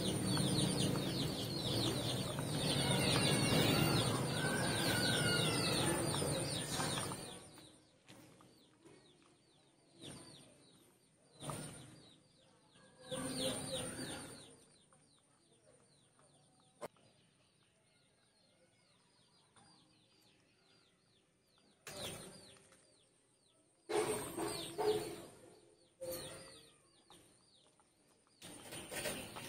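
Chickens clucking and small birds chirping: busy and continuous for the first seven seconds, then in short separate bursts, over a faint steady high-pitched tone.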